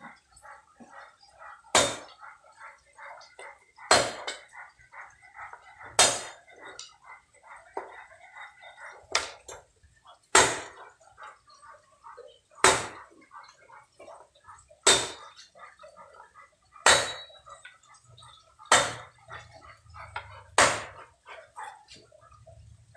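Cleaver chopping thin firewood sticks on a round wooden chopping block: about ten sharp chops, roughly one every two seconds.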